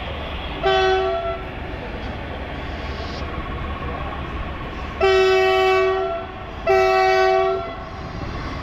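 Train horn sounding three times, each blast a chord of several tones: a short blast just under a second in, then two longer blasts of about a second each around five and seven seconds in. Under it runs the steady rumble of a moving train.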